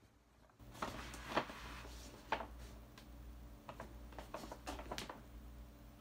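Cardboard gift box being handled and set down on a charger plate: a string of light knocks and scuffs, the sharpest about a second and a half and two and a half seconds in.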